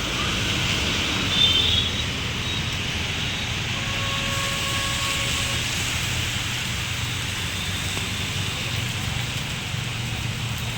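Steady rain falling, a continuous hiss over a low hum, with a brief louder high sound about one and a half seconds in.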